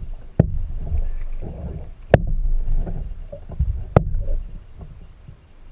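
Kayak paddling on water: a low, uneven rumble of water and handling noise, with three sharp knocks about two seconds apart.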